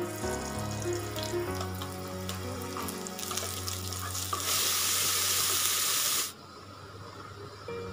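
Oil crackling in the hot inner pot of an electric pressure cooker. About four and a half seconds in, a louder, steady sizzle follows as quinoa is tipped into the oil to toast, lasting about two seconds before it cuts off suddenly.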